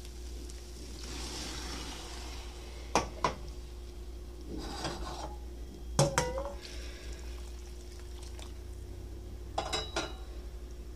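Hot water and milk being poured into a wok of frying rice and vegetables, with light sizzling. Sharp metal clinks of a pot or utensil against the pan come three times: about 3 s in, about 6 s in, and near the end. A steady low hum runs underneath.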